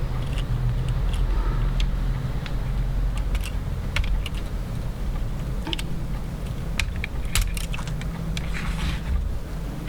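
Small, irregular clicks and taps of tools and fingers working on the plastic and metal parts of a compact digital camera being taken apart, over a steady low hum.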